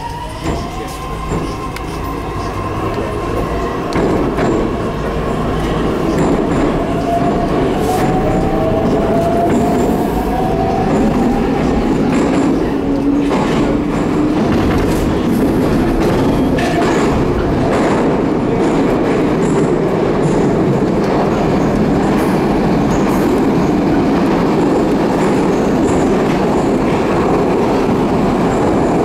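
Inside a 'Jubileinyi' metro car as the train pulls away and accelerates. The traction motors' whine rises in pitch over the first dozen seconds while the running noise grows louder. The train then runs at speed with a steady rumble and occasional sharp clacks from the wheels.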